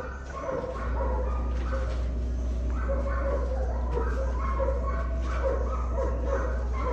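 Dogs barking and yelping over and over, several calls a second, over a steady low hum.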